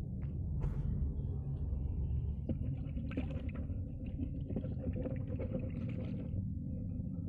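A hand swishing and stirring water in a basin, splashing and sloshing from a couple of seconds in until near the end, over a steady low rumble.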